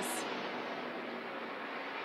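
Pack of NASCAR Craftsman Truck Series trucks' V8 engines running at racing speed, heard over the broadcast as a steady drone and hiss.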